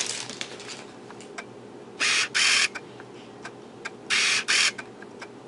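Unboxing handling noise: two pairs of short, sharp rasping strokes about two seconds apart, with small clicks and taps of parts being handled between them.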